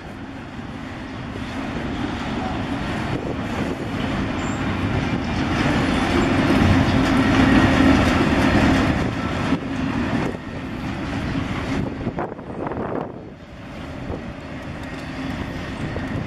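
Double-stack intermodal freight train's loaded container well cars rolling past: a continuous rumble of steel wheels on rail, loudest about halfway through and easing off after.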